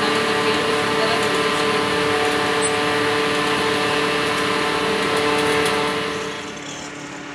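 Steady machine drone from an engine or motor, a constant hum with hiss over it, that fades down about six seconds in.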